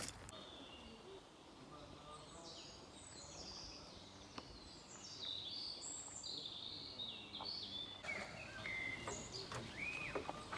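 Songbirds singing: a string of quick, high, mostly falling chirps and trills that comes in about two seconds in and keeps going.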